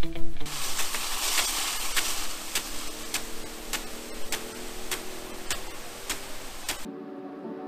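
Field irrigation rain gun spraying: a steady hiss of water with the impact arm ticking back about every half second. Music ends about half a second in and returns abruptly near the end.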